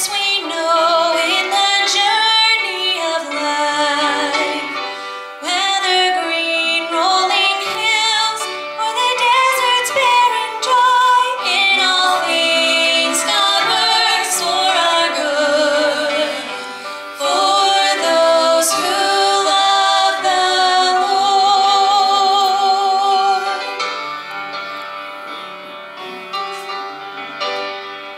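Two women singing a gospel song into microphones, with vibrato on the held notes, over an instrumental accompaniment. The voices stop about 24 seconds in, leaving the accompaniment playing more quietly.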